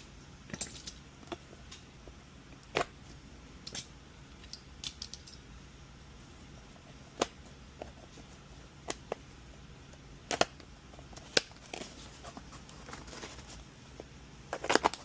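Irregular light clicks and taps of a small circuit board and hand tools being handled on a workbench, a dozen or so separate ticks with a quick cluster near the end, over a faint steady low hum.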